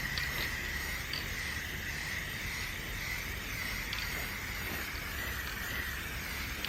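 Aerosol spray paint can spraying in one long, steady hiss with a faint whistle-like tone in it.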